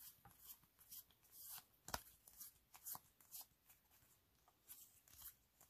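Near silence with faint rustling and light clicks of trading cards being handled, the sharpest click about two seconds in.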